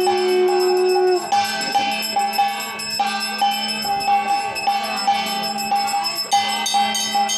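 Aarti ritual sounds: a brass hand bell and other metallic percussion ringing in a steady, fast repeating rhythm over a low steady drone. A long held tone stops about a second in.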